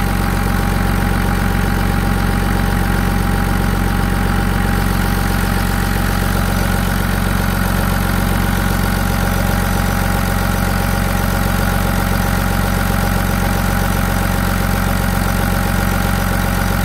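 A 1999 Dodge's 5.9-litre Cummins inline-six turbo-diesel idling steadily, heard close up in the open engine bay.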